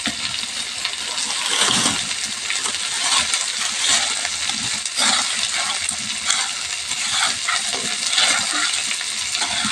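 Sliced onion, green chillies and bay leaf frying in hot oil in a pan: a steady sizzle, broken by scattered sharp clicks and clinks.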